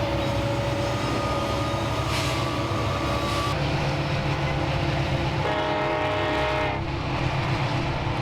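Steam locomotive working uphill under load, a continuous heavy chuffing rumble, with a whistle sounding for a little over a second near the end.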